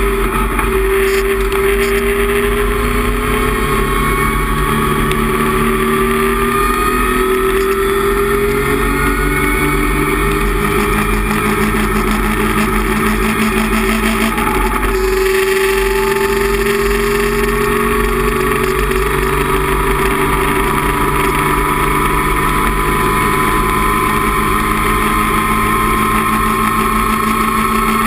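Datsun 260Z race car's straight-six engine pulling hard, heard from inside the cockpit, its pitch climbing steadily. About halfway through, an upshift drops the pitch, and it climbs again.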